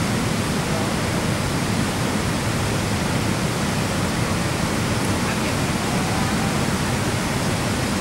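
Steady rushing of a large waterfall in flood, heavy brown water pouring over rock ledges and through rapids.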